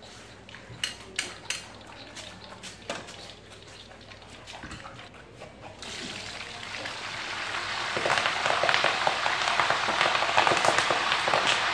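A few sharp clinks of a wire strainer and ladle against a wok, then, about six seconds in, wild pomelo leaves in hot oil start sizzling, getting louder over the next two seconds and staying loud.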